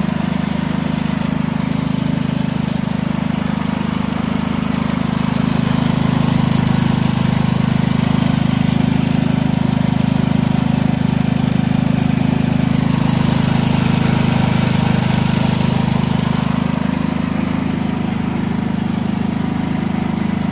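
Predator 3500 inverter generator's single-cylinder engine running steadily, now that a new coil control module has restored its spark. It gets a little louder about five seconds in and eases back near the end.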